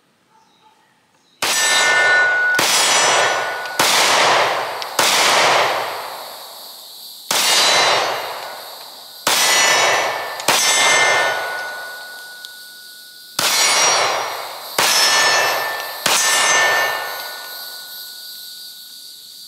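About ten sharp metallic clangs at uneven intervals, each a struck-steel ring that fades over a second or two.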